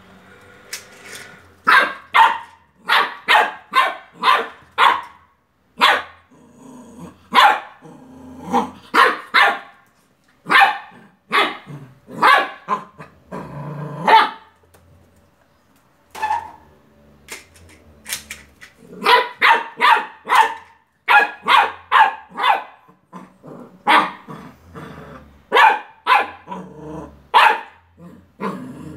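Beagle puppy barking repeatedly at a toy car, short high barks in quick runs of three to six, with a lull of a few seconds past the middle.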